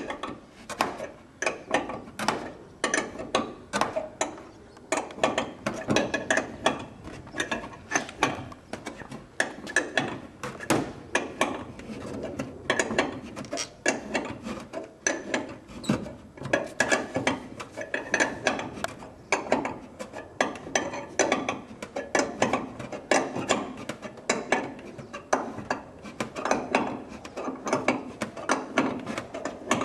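Ratchet wrench cranked stroke after stroke, a steady run of rapid clicks, driving a jack braced against the wing spar that pushes a bird-strike dent back out of the wing's leading edge.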